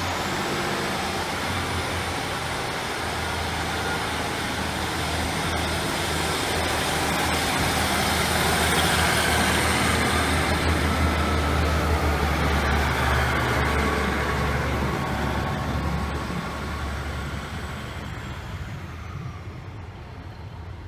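Class 150 Sprinter diesel multiple unit passing at low speed, its underfloor diesel engines giving a low drone with a steady high whine over it. The sound builds as the coaches go by, peaks about halfway through, then fades as the train moves away, the whine dying out near the end.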